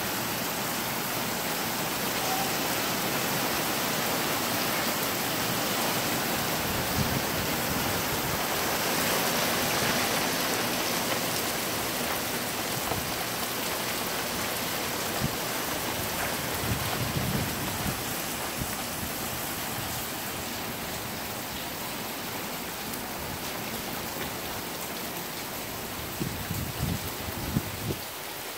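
Heavy rain falling steadily, a dense even hiss that swells a little about ten seconds in. A few soft low thumps come through it, several close together near the end.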